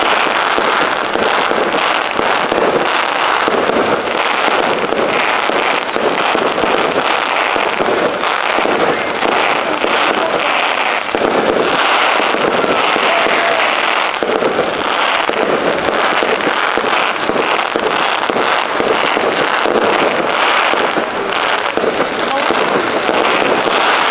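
Aerial fireworks going off: a loud, dense and unbroken crackling and popping as shells burst into glittering crackle stars.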